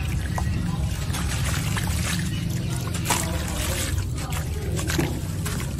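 Water trickling and splashing into a basin as a wet, crumbling sandy block is dipped and squeezed by hand, with a few sharper gritty crunches.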